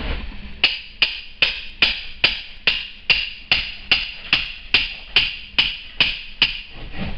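Steady hammer blows on an old railroad spike used as a chisel, knocking bricks out of an old brick chimney's crumbling mortar: about fifteen even strikes, roughly two and a half a second, each with a short metallic ring, stopping near the end.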